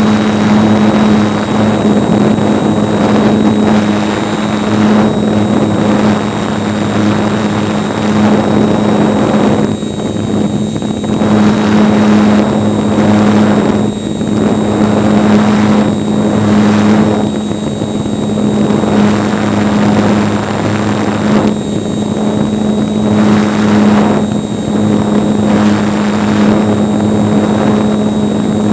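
RC model airplane's motor and propeller running steadily at cruise, heard from a camera mounted on the plane, with wind rushing over the microphone that swells and fades every few seconds as the plane banks and turns.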